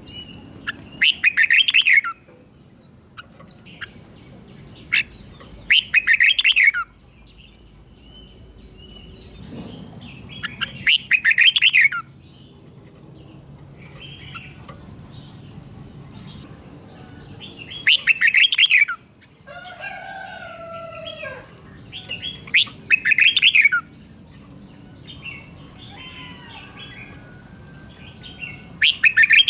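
Red-whiskered bulbul singing short, loud song phrases about a second long, six times, a few seconds apart, with softer calls in between.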